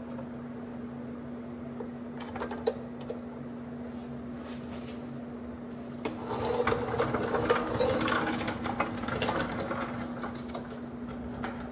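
Mechanic's tool work on car metal: scattered clicks and clinks, then a few seconds of busier, rapid mechanical rattling about halfway through, over a steady hum.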